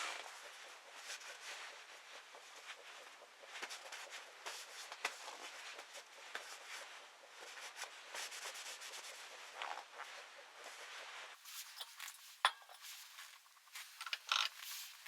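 Rubbing and scraping with scattered light clicks and knocks. There is a sharper knock about twelve seconds in, and more clicks near the end.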